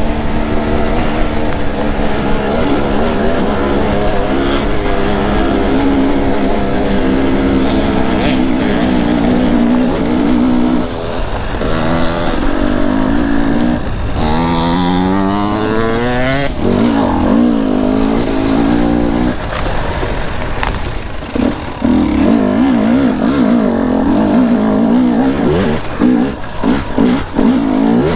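Dirt bike engine under throttle, running steadily, then revving up in a long rise about halfway through, with a wavering rev and quick on-off throttle blips near the end.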